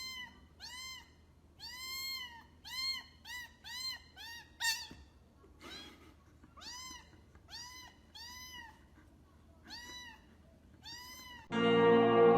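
A cat meowing over and over: short, high mews that rise and fall in pitch, about one a second. Music comes in near the end.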